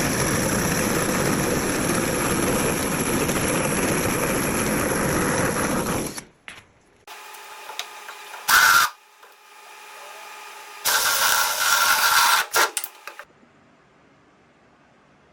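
A power tool cutting through floor framing for drain-line holes, running steadily for about six seconds, then stopping and restarting in two shorter bursts.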